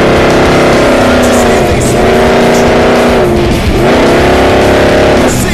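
Off-road race truck's engine heard from inside the cab, pulling hard and climbing in pitch through the gears. It drops twice at gear changes, about two seconds and three and a half seconds in, and climbs again after each.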